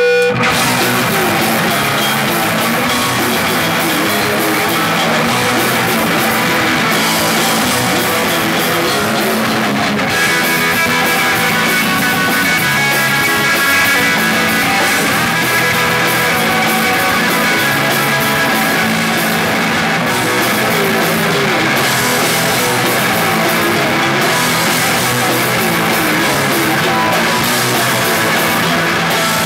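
Punk rock band playing live and loud: electric guitar strummed hard over drums, a dense wall of sound with no breaks.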